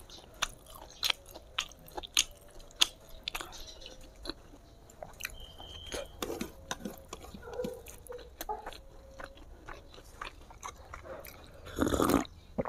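Close-miked mouth sounds of a person chewing sticky rice and smoked pork: a run of short wet clicks and smacks. Near the end comes a louder slurping sip from a glass.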